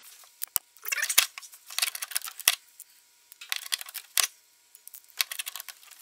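Small wrench clicking and scraping against the terminal bolt of a truck battery, in four short bursts of rapid metal clicks with pauses between.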